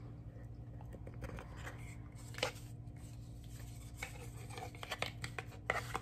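Small cardboard jewelry box and its lid being handled: scattered light scrapes and taps as the cardboard rubs and knocks, the sharpest about two and a half seconds in and a cluster near the end.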